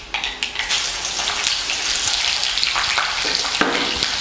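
Whole green chilies dropped into hot oil with tempering cumin, fenugreek and mustard seeds in a clay pot: the oil breaks into a strong sizzle within the first second and keeps sizzling steadily, with scattered crackles from the seeds.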